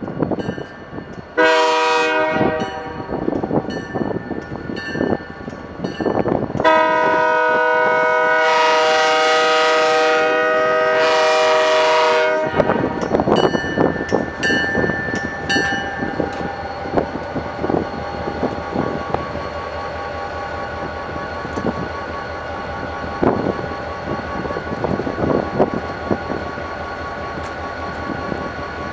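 Diesel locomotive's multi-chime air horn blowing a short blast and then a long one of about six seconds, for the crossing. After the horn, the locomotives' diesel engines run as the train rolls slowly past, with wheels clicking over the rail joints.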